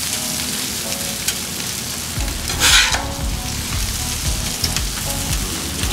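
Steady frying sizzle from a hot Blackstone flat-top griddle as cooked ground beef is spooned onto nachos. A metal spatula scrapes once, briefly and loudly, a little before the middle.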